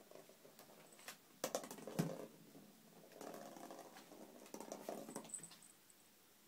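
A kitten's paws scrabbling and pattering on a wooden floor and rug as it bats a plastic ball about, with a few sharp knocks between one and two seconds in and two short bouts of scuffling after that.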